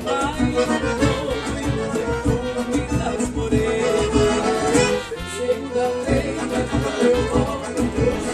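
Accordion-led Brazilian bandinha dance music with a steady beat; the low end thins briefly about five seconds in before the full band returns.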